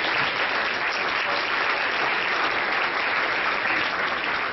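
Audience applauding steadily, a dense crowd of hands clapping.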